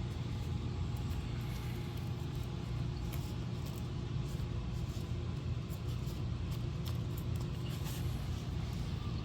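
Steady low rumble of a running vehicle, with a few faint ticks on top.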